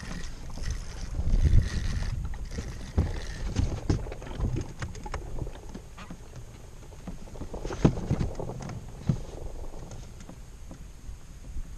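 Spinning reel being cranked and scattered knocks on the small boat's hull while a hooked bass is fought, over a steady low wind rumble on the microphone. The sharpest knock comes about eight seconds in.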